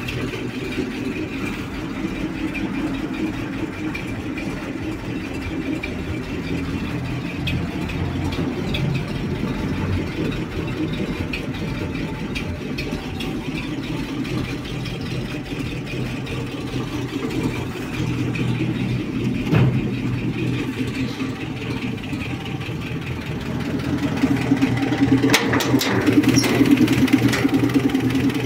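GAZ-53 dump truck's V8 petrol engine idling steadily. It gets louder near the end.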